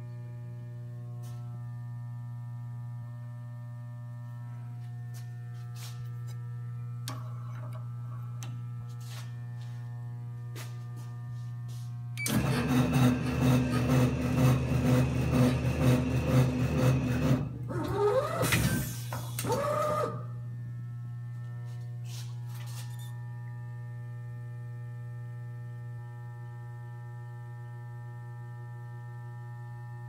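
Schleuniger JS 8400 automatic wire stripping machine: a steady electrical hum with a few light clicks, then about twelve seconds in its drive runs loudly for about five seconds with a pulsing rattle of about three pulses a second. It follows with a couple of rising whines and stops about twenty seconds in, leaving the hum.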